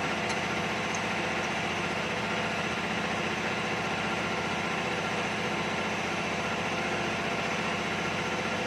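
An engine idling steadily, a constant hum with a fast even pulse low down.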